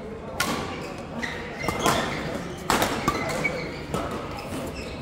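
Badminton rackets striking a shuttlecock in a doubles rally: several sharp hits about a second apart, each ringing on in a large echoing hall.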